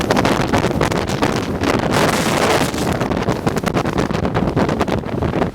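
Strong gusty wind buffeting the microphone, a loud rough rumble that surges and drops unevenly.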